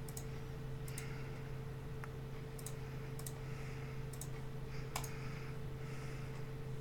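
Trading cards being handled: a few sharp, sparse clicks and soft rustling as cards are moved, over a steady low electrical hum.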